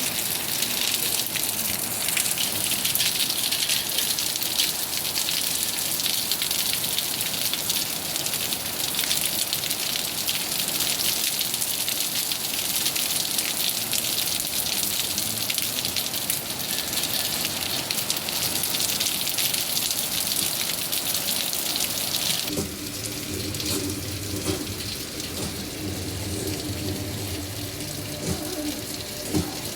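Rain falling steadily, a dense even hiss. About three-quarters of the way through it drops suddenly to a softer patter with a low steady hum underneath.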